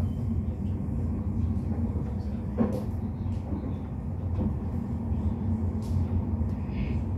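Commuter train running along the track, heard from inside the passenger car as a steady low rumble. A few faint clicks sound over it, the clearest about two and a half seconds in.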